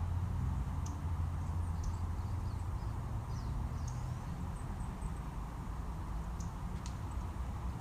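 Steady low outdoor rumble, a little louder at the start, with scattered faint high bird chirps.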